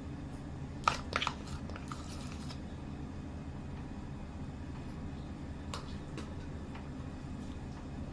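Metal kitchen utensils clinking: a quick cluster of sharp clicks about a second in and two fainter ones around six seconds, as a steel spoon ladles caramel sauce onto a cake. A steady low hum runs underneath.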